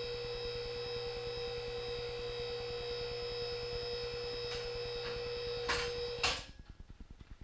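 QuickJack portable car lift's electric hydraulic power unit running steadily with a high-pitched hum as it raises the lift. Near the end there are two sharp clicks, and the motor cuts off.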